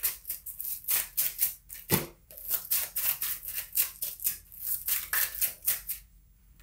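Deck of tarot cards shuffled by hand: a quick run of papery slaps and swishes, several a second, that stops about six seconds in.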